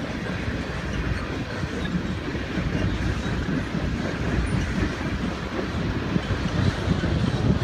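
Oil train's tank cars rolling past at speed: a steady rumble and clatter of steel wheels on rail.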